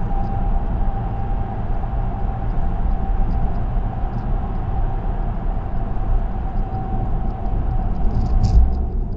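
Car tyre and road noise at expressway speed, heard from inside the car: a steady low rumble with a steady hum over it, and a single bump near the end.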